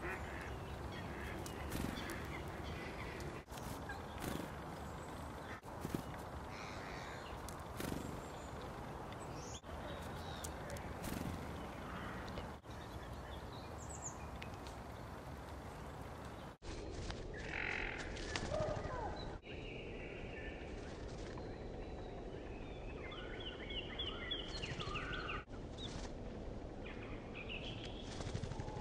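Outdoor ambience with small birds chirping now and then, as short high calls. The audio is broken by several sudden cuts between clips.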